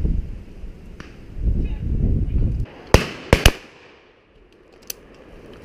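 Three shotgun shots in quick succession about three seconds in, the last two only a fraction of a second apart, fired at driven pheasants. Wind rumbles on the microphone before the shots.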